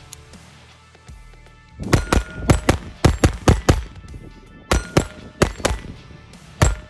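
Taurus TX22 Compact .22 LR pistol fired unsuppressed with Federal AutoMatch 40-grain ammunition: a quick string of about a dozen sharp shots in two runs, with a short pause between them.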